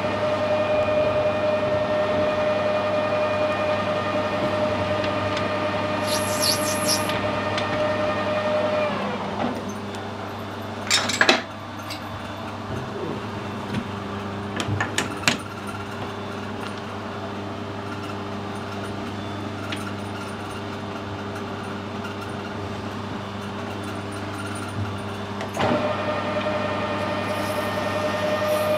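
Metal lathe running with a steady whine, then switched off about nine seconds in, the pitch falling as the spindle runs down. A few sharp metallic clicks follow while it stands, and the lathe starts up again near the end.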